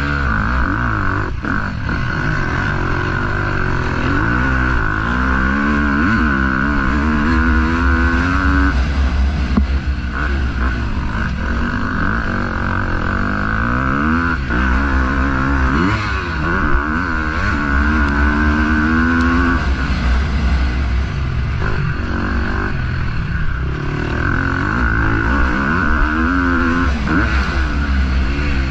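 KTM 250 SX-F motocross bike's single-cylinder four-stroke engine revving hard, its pitch climbing through the gears and dropping off several times as the bike is ridden round the track, heard from a helmet-mounted camera.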